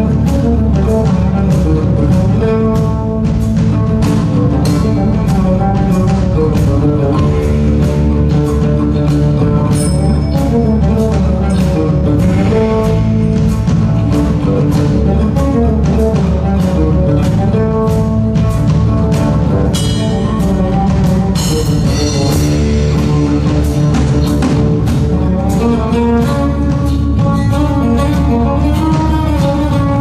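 Live band music: a guitar playing a melodic line over a steady low bass and a regular beat of percussion strikes.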